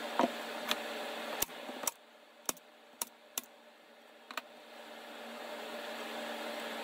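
A string of short, sharp clicks and light knocks, about eight in all and irregularly spaced, from a wooden frame and metal mesh screen being shifted and set in place. A steady low hum runs underneath.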